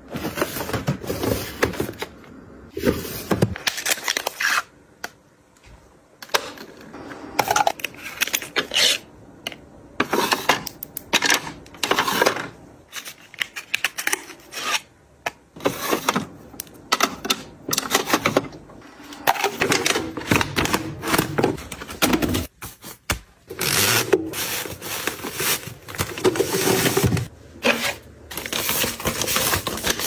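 Hands handling and arranging skincare products and their packaging: irregular clicks, taps and crinkles of plastic containers and foil sheet-mask packets, coming in quick clusters with short pauses between.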